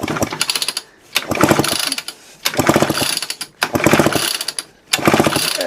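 Recoil starter of a 1974 Homelite XL-12 chainsaw pulled five times in quick succession, each pull a rapid ratcheting clatter as the engine turns over without firing. The spark plug is out for a spark check, and no spark comes.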